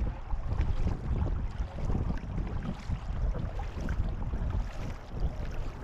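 Wind buffeting the microphone in an uneven low rumble, over water swishing and lapping along the hull of a long canoe being paddled.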